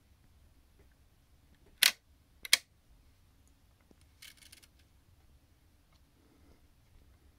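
Ilex No. 5 Universal leaf shutter on a Kodak Commercial Ektar lens clicking sharply twice, about 0.7 s apart. A fainter, half-second rattling buzz from the shutter mechanism follows a couple of seconds later.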